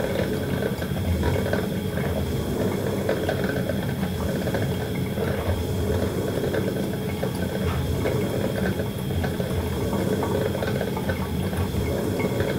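Coffee maker brewing: hot water bubbling steadily, with a faint steady high tone.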